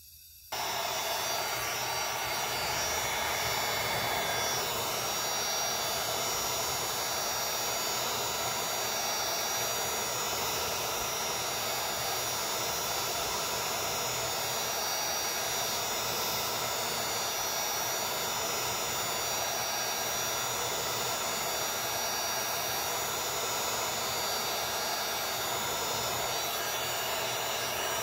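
Electric heat gun switched on about half a second in, then running steadily with its fan blowing hot air. It is heating kydex to soften it for folding.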